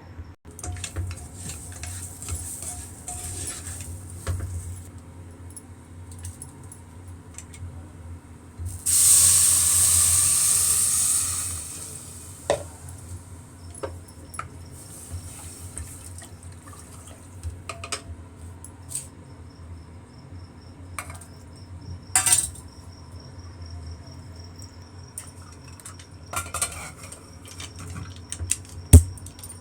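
Cooking sounds in a kitchen: scattered clinks and knocks of metal utensils and pots, with a loud rushing hiss lasting a few seconds about nine seconds in, and one sharp knock near the end.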